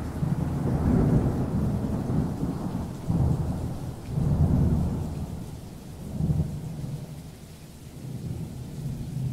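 Thunderstorm sound effect: rain with low rolling thunder that swells and fades several times, easing toward the end.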